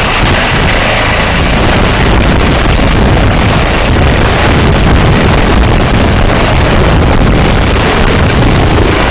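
Eurocopter EC135 helicopter lifting off and climbing slowly in a low hover. Its rotor and twin turbine engines run loud and steady, and the rotor downwash buffets the microphone.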